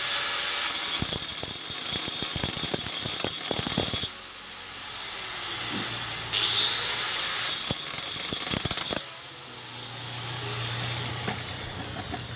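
Small cutting machine fitted with a stone-cutting blade grinding into an iron rod in two bursts, the first lasting until about four seconds in and the second from about six to nine seconds, with a screeching hiss and rattling chatter. Between and after the bursts the motor keeps spinning with a lower steady hum. The stone blade is struggling and does not cut the iron cleanly.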